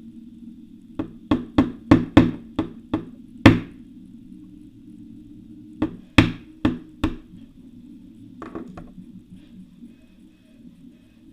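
Hammer striking a punch (cut-down nail or spoke) to drive the pin out of a Shimano BL-M7100 brake lever's clamp: a quick run of about eight sharp blows, a pause, four more blows, then a couple of lighter taps.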